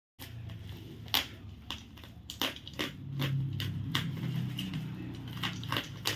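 Packaging being handled and torn open: irregular crinkling, crackling and sharp clicks, over a low steady hum.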